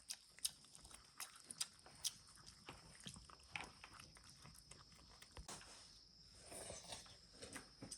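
Faint, irregular clicks and crunches of a dog chewing, with a soft snuffle near the end.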